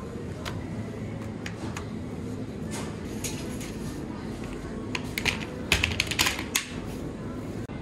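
Plastic shopping basket and metal basket trolley clattering and clicking as they are handled and pushed, with a burst of sharp clacks about five to six and a half seconds in, over a steady low store hum.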